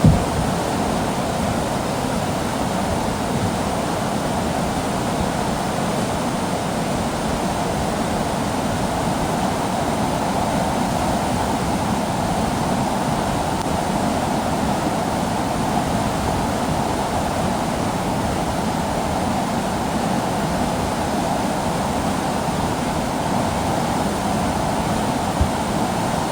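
Fast floodwater rushing in a steady, even flow, with a short knock at the very start.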